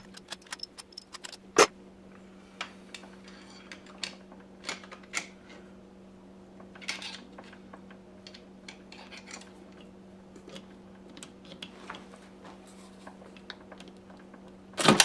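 Scattered sharp clicks and metallic clinks of hand tools and small parts being handled on a GM 4L80e transmission during teardown, over a steady low hum. A sharp click comes about a second and a half in, and a louder clatter right at the end.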